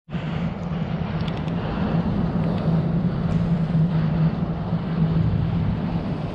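Motorboat engine running with a steady hum.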